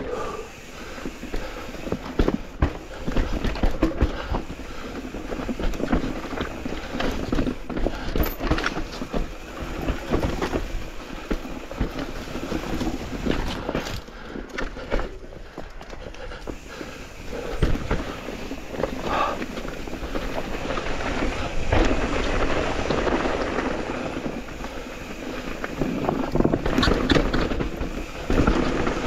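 Mountain e-bike riding over rough trail: tyre noise with the bike rattling and knocking over bumps, and wind on the microphone.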